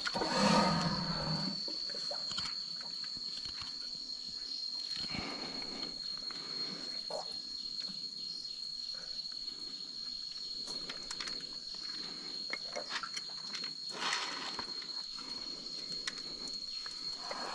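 Faint scraping and clicks of a knife paring the sole of an elephant's abscessed foot, with a short low sound from the elephant about half a second in and another brief one near the end. A steady high-pitched whine runs underneath.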